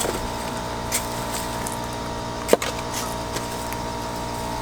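Shovel work as dirt goes into a fence-post hole: a few short sharp knocks, the loudest about two and a half seconds in, over a steady background hum.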